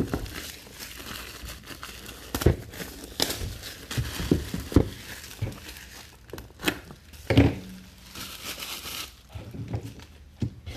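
Packaging crinkling and tearing as a trading-card box is opened by hand, with several sharp knocks and taps scattered through it.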